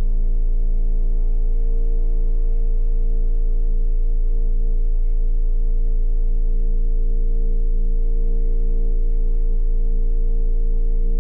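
Horror-film underscore drone: several steady tones held together as one chord over a very deep bass, with no change in pitch or level.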